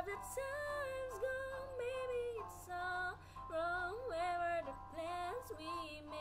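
Music with a high voice carrying a gliding melody without clear words, over a steady low hum.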